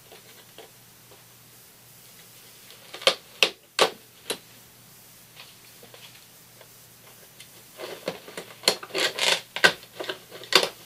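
Pliers clicking and snapping against the metal seat frame as the fasteners holding the old cover are worked loose. A few sharp clicks come about three seconds in, then a busier run of clicks and snaps near the end.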